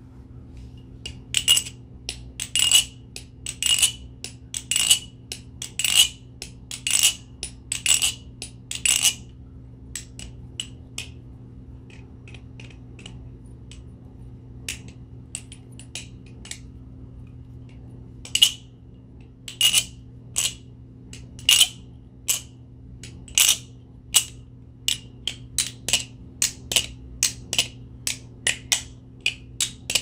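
Nabalis Morse channel-aluminum balisong being flipped, its handles clacking together in sharp metallic clicks with a ringing note, about two a second. The clicks turn faint and sparse for a stretch in the middle and come back loud and closer together near the end. A steady low hum sits underneath.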